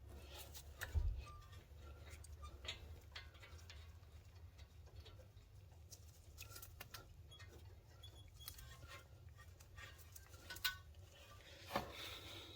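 Scattered light clicks and scrapes of hands handling a brake bolt and a thread locker tube, over a faint steady low hum; one louder knock about a second in.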